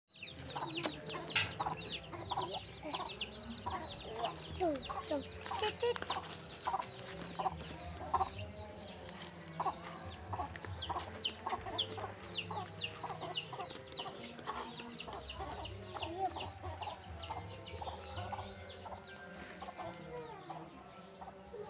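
Fowl chirping continuously: many rapid, high, falling cheeps, several a second, over a low steady hum.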